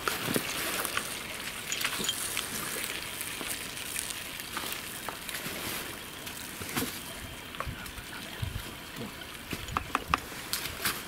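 Bean stew simmering with a soft, steady hiss in a cast-iron pot over campfire embers as a wooden spoon stirs it, with scattered light clicks and knocks, a few more near the end.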